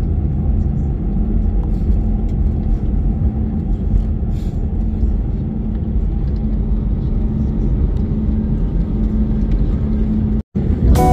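Airbus A320 cabin noise on the landing roll: a steady low rumble of the engines and the wheels on the runway, with a faint hum, heard from inside the cabin. It cuts out abruptly near the end, and music starts.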